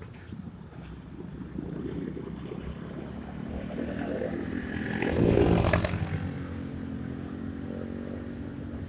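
Honda Scoopy scooter riding through city traffic, its engine running steadily. A louder vehicle sound swells and fades about five seconds in.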